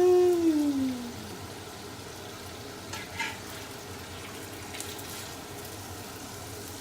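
Oil and chicken juices sizzling steadily in a hot frying pan. In the first second a person's voice slides up and then down in one drawn-out tone, the loudest sound, and a couple of light clicks come about three and five seconds in.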